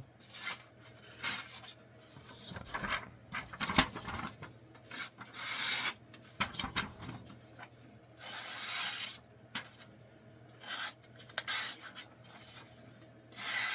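A freshly sharpened knife blade slicing through sheets of copy paper in about a dozen short, irregularly spaced hissing strokes, as a test of the edge's sharpness.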